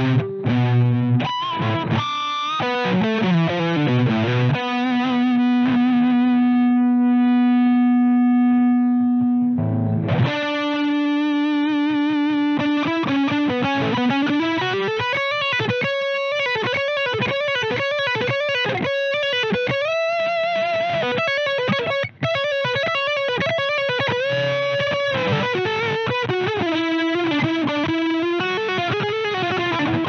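Electric guitar played through a Twinote Boogie Distortion pedal with a distorted, high-gain tone. A few chords lead into one long sustained note. Then comes a fast-picked lead line whose pitch wavers with bends and vibrato.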